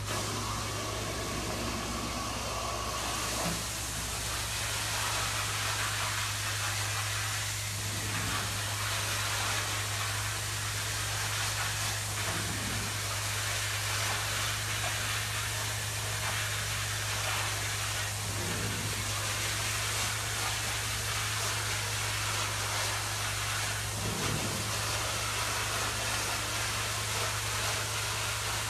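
Hot water extraction carpet cleaning machine running: a steady rushing hiss of suction through the wand and hose over a constant low hum, shifting slightly every few seconds as the wand is worked across the carpet.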